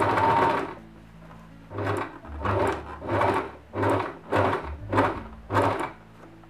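Singer 2273 Tradition sewing machine stitching slowly: a longer run of stitches at the start, then about seven short separate bursts a little over half a second apart as the fabric is worked toward a corner.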